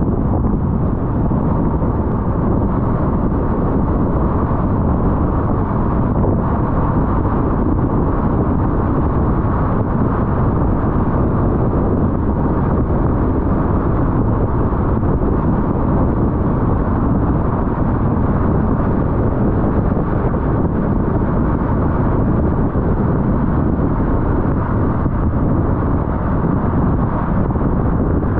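Steady road and wind noise of a car driving at highway speed, an even low rush with no breaks or changes.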